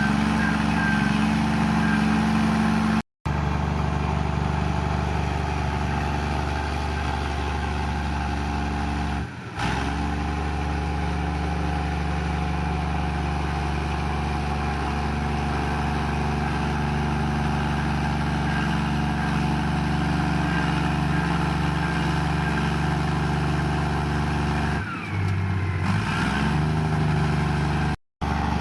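Komatsu bulldozer's diesel engine running steadily while the dozer pushes mud. The engine briefly drops and then picks up again near the end.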